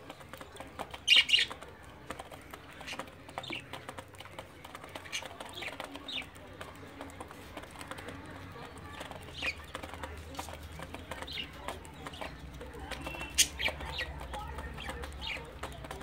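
Budgerigars chirping: short, high chirps scattered throughout, with a louder sharp call about a second in and another near 13 seconds.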